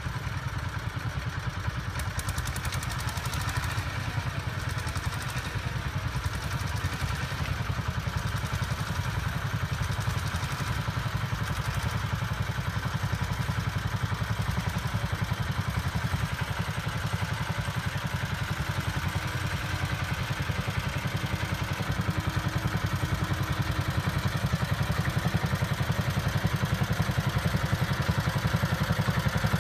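Vintage tractor engine running steadily under load while ploughing, its exhaust beat a fast even pulse, growing gradually louder toward the end.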